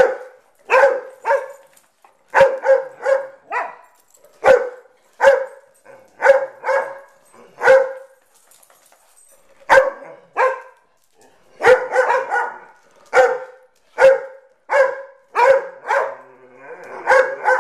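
A dog barking repeatedly in play: short barks, one or two a second, with a pause of nearly two seconds before the middle and quicker, crowded runs of barks later on.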